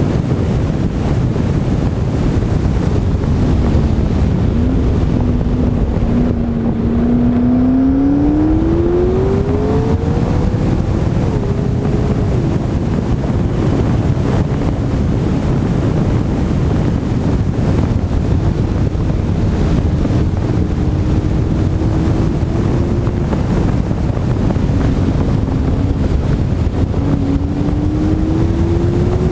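Heavy wind rushing over a car-mounted GoPro at track speed, with the McLaren 12C's twin-turbo V8 heard faintly underneath. The engine note climbs steadily under acceleration, drops at an upshift, and climbs again near the end.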